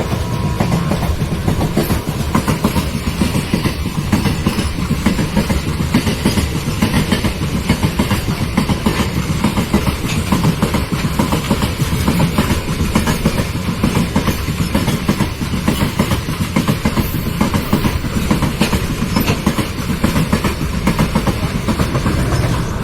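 Goods train rolling past, its steel wheels clattering in a fast, continuous clickety-clack over the rail joints under a steady rumble.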